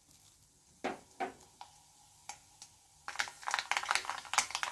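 Mustard seeds in hot coconut oil in a kadai, starting to pop: a few scattered pops at first, then dense crackling from about three seconds in as the seeds burst.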